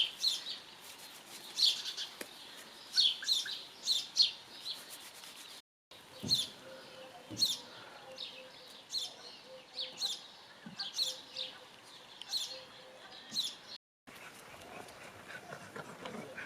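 Birds chirping: a string of short, high chirps, each falling in pitch, about two a second. The sound cuts out completely for a moment twice, and the chirping is fainter after the second break.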